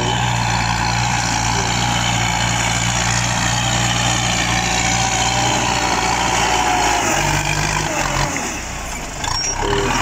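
Farm tractor engine running steadily under load as it pulls a disc plough through the soil. Near the end the engine note shifts and drops for about a second, then comes back.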